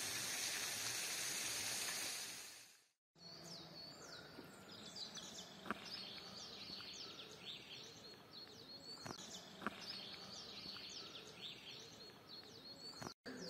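A steady hiss fades out over the first three seconds. After a brief break, small birds are chirping busily, many quick high down-slurred chirps overlapping, with a few faint knocks.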